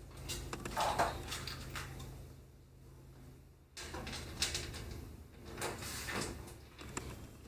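Small metal clicks and scrapes of standoffs being threaded by hand into a metal case panel. They come in short bursts, with a quiet pause in the middle.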